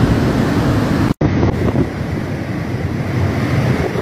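Rushing water of a flash-flooded mountain river in muddy spate, with wind buffeting the microphone. The sound drops out for an instant about a second in and then goes on a little duller.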